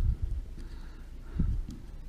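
Dull, low thumps, one at the start and another about a second and a half in.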